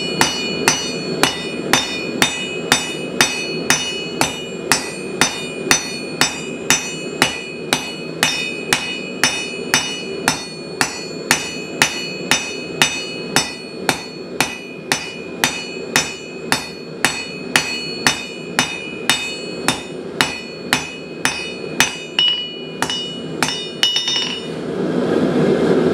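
Hand hammer striking hot steel on an anvil in a steady rhythm, about two blows a second, each with a bright metallic ring, as a tine of a trident is drawn to a point; the blows stop about a second before the end, over a steady low rushing noise.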